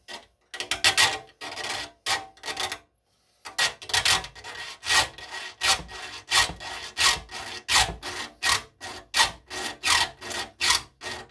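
Steel file stroking across the teeth of a hand saw, sharpening the leading edge of a tooth. A few strokes, a short pause about three seconds in, then a steady run of quick strokes, about two to three a second.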